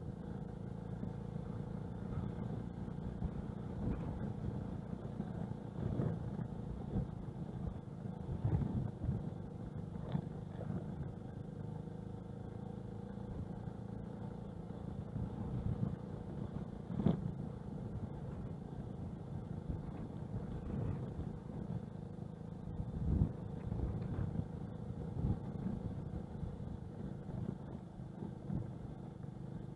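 TVS XL 100 moped's small single-cylinder four-stroke engine running steadily while riding over a gravel road, with irregular knocks and jolts from the rough surface, the sharpest a little past halfway and again later.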